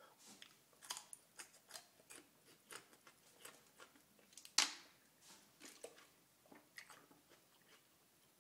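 Raw garlic being chewed: a run of soft, crunchy chewing and mouth noises. There is one much louder sharp click about halfway through, then sparser small mouth sounds.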